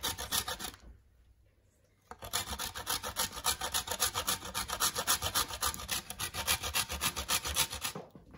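Scraps of cured bar soap being grated by hand on a metal box grater: quick, even rasping strokes, about five a second. The strokes pause for about a second near the start, then run on steadily.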